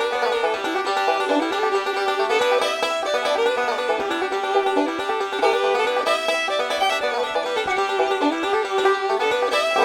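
Background music: a lively bluegrass-style tune led by a plucked banjo.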